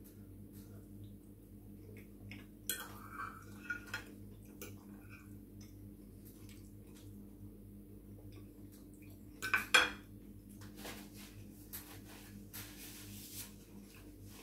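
A metal fork clinking and scraping on a plate during eating, with a few sharp clinks, the loudest about ten seconds in. Quieter chewing sounds come between them.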